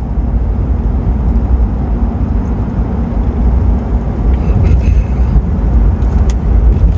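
Steady low rumble of a vehicle driving on the road, with a short patch of light rattles and clicks about four to five seconds in and one sharp click near the end.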